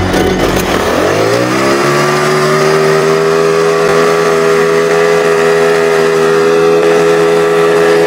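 Bajaj Pulsar motorcycle engine, a single-cylinder four-stroke, driving a homemade boat: it revs up over the first couple of seconds as the boat pulls away, then runs steadily at high revs.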